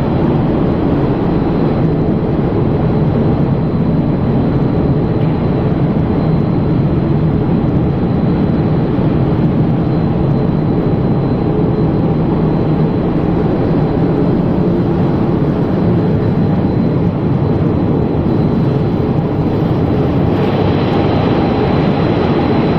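Cereal flake processing line running: an even, steady machinery noise from the dryer's electric motors and blowers, with a thin, steady high whine over it. The hiss brightens a little near the end.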